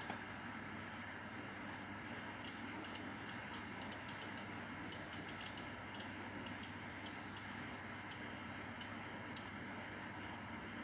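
Nuve NB5 laboratory water bath's controller giving short high beeps, one for each step as its rotary knob is turned and the displayed setting steps down. A single longer beep at the start, then a run of quick, irregularly spaced beeps for about seven seconds.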